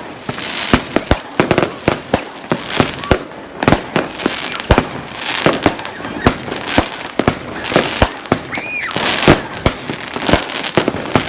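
New Year's fireworks: many irregular, sharp bangs of firecrackers and exploding rockets over a crackling haze. A short whistle sounds about eight and a half seconds in.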